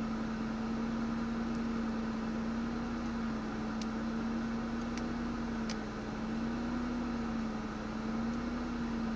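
Ford Mondeo ST220's 3.0-litre V6 idling roughly: a steady hum that wavers slightly in pitch, with a few faint ticks in the middle.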